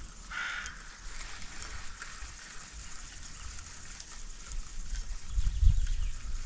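Water lapping and trickling around a small boat's hull, heard as a fine crackly hiss with small ticks. Near the end comes a low thud and rumble, the loudest moment.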